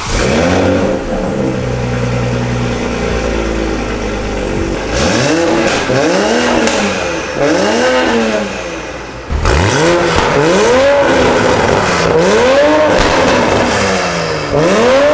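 2020 Toyota Supra's B58 turbocharged inline-six on its stock exhaust with an aftermarket downpipe, idling steadily, then revved in a series of quick throttle blips, each rising and falling. Near the middle there is a short break, after which the blips come louder, in keeping with the switch from regular to sport mode opening the exhaust valve.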